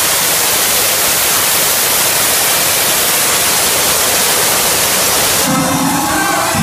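A loud, steady hiss that drowns out the club's dance music. It cuts off sharply about five and a half seconds in, when the music's beat returns.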